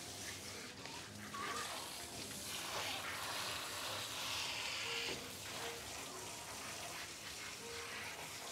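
Water spraying from a dog-bath hose sprayer onto a shampooed dog's coat in a stainless steel tub, a steady hiss that is heaviest around the middle.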